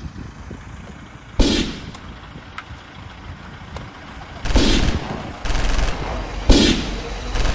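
Volleys of rapid gunfire-style shooting, four loud bursts coming suddenly one after another, the first about a second and a half in and the last carrying on to the end.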